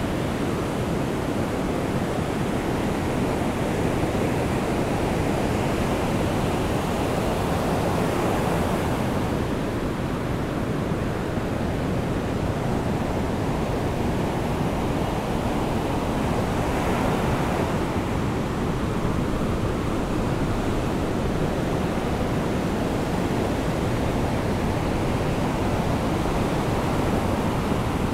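Sea surf washing onto a sandy beach in the rain, a steady rushing noise that swells slightly twice as waves break.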